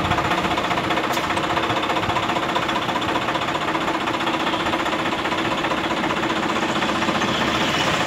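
Swaraj 960 tractor's diesel engine running steadily with a rhythmic mechanical clatter.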